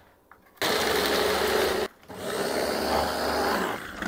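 Electric mini chopper motor running in two pulses of about a second and a half each, its blade chopping raw garlic cloves in the plastic bowl.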